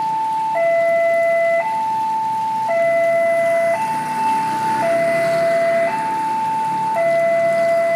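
Railway level-crossing warning alarm sounding, an electronic two-tone signal that alternates between a higher and a lower note about once a second: the barriers are closed for an approaching train.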